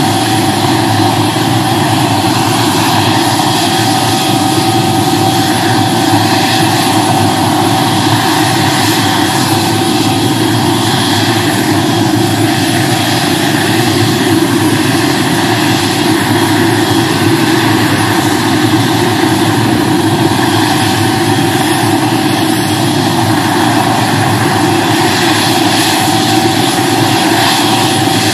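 Light police helicopter sitting on the ground with its engine and rotor running: a steady, loud whine over a dense rush that holds even throughout.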